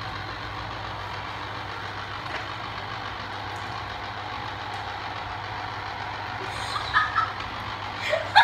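Electric citrus juicer running steadily with a low hum, its spinning reamer working an orange half pressed down onto it. A few short, louder sounds come over it near the end.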